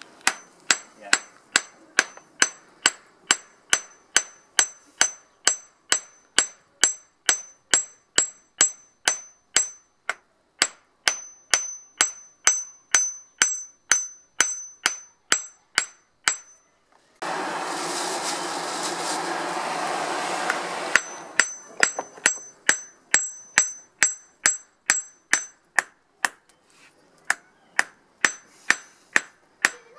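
Hammer striking hot steel on a steel block used as an anvil: steady blows about two a second, each with a high metallic ring, forging a bodkin arrowhead. About two thirds of the way through, the blows stop for a few seconds of steady rushing noise, then resume.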